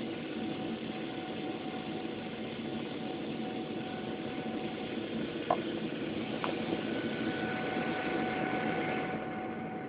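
Steady cabin roar of a Boeing 777-300ER in its climb after take-off, heard from a window seat beside its GE90 engine, with faint steady engine whines running through it. Two short clicks come about five and a half seconds in, a second apart.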